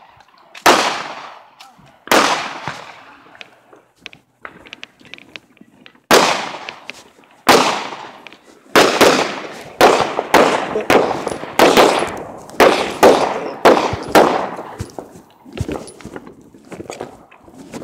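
Gunshots on a shooting range. Two single shots in the first few seconds, then from about six seconds in a steady string of shots, roughly two a second, each with a short echoing tail.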